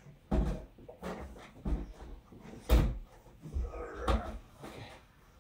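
Heavy video projector being shoved and settled into a wall recess: a series of about six knocks and thumps, the loudest a little over halfway through.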